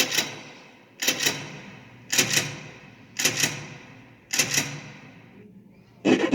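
Added sound effect of a sharp mechanical double clack, struck five times about once a second, each ringing and fading briefly. Near the end a dense, rapid rattling starts.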